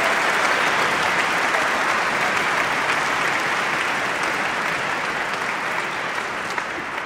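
Audience applause, a dense even clapping that slowly dies down toward the end.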